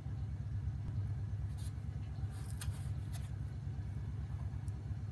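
A steady low hum, with a few short scratchy rasps about one and a half to three seconds in as a serrated knife cuts through the cheesecake's graham crust and scrapes the foil pie pan.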